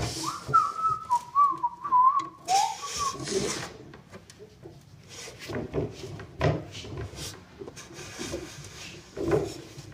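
A person whistling a short wavering tune for about two and a half seconds, followed by scattered knocks and scuffs of someone moving about.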